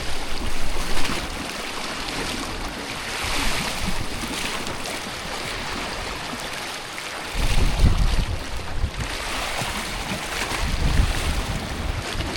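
Sea waves washing against shore rocks, swelling and falling away every few seconds, with wind buffeting the microphone in low rumbles from about halfway through.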